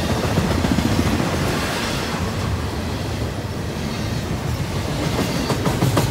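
Double-stack container well cars of a freight train rolling past: a steady rumble of steel wheels on the rails, with a quick run of clicking over rail joints near the end.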